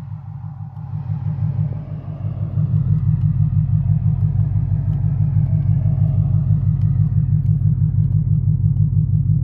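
An engine or motor running steadily with a low, rapidly pulsing rumble. It is a little quieter for the first two seconds, then holds level.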